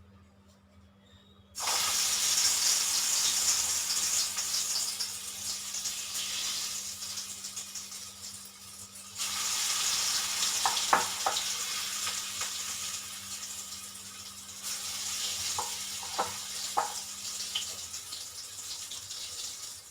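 Raw-banana kofta balls dropped into hot oil in a kadai, the oil sizzling up loudly at each drop, three times, and easing off in between as they fry. A few light clicks of a utensil against the pan.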